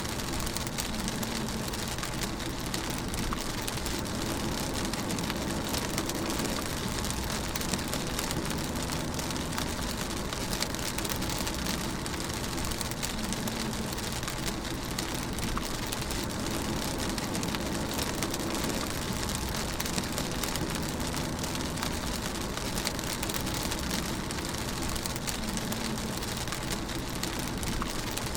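Steady rain pattering on a car as it drives, heard from inside the cabin, over a constant low hum of engine and road noise.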